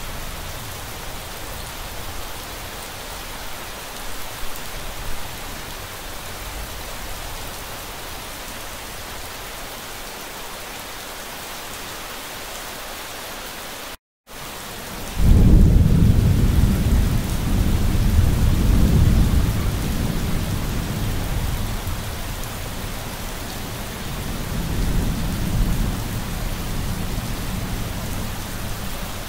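Steady rain hiss that cuts out for a moment about halfway. A long rolling thunder rumble then comes in loud, eases off, swells again a few seconds before the end, and fades under the continuing rain.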